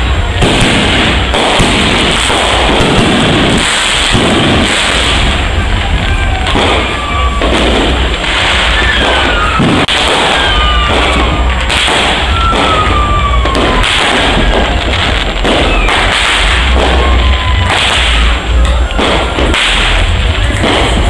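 Fireworks going off in quick succession: a continuous clatter of bangs and crackle. Several falling whistles sound through the middle.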